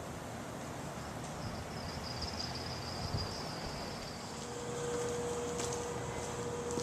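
Faint outdoor background hiss, with a thin high whine for a few seconds, then a steady low hum from about the middle onward.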